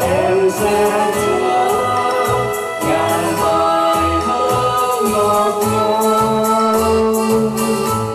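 A man and a woman sing a slow duet through microphones, backed by an electronic keyboard with bass notes and a programmed drum rhythm. The voices hold long notes.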